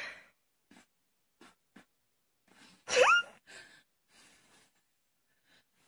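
A person blowing soft puffs of air at a kitten from very close: a few faint puffs, then a louder breathy puff about three seconds in that carries a short sound rising quickly in pitch.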